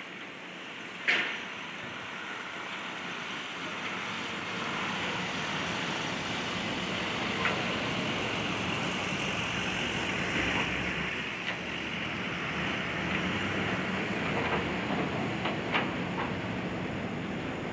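Demolition excavator's diesel engine running steadily as its hydraulic grapple works at a building, with a sharp clank about a second in and scattered knocks and crunches of debris later on.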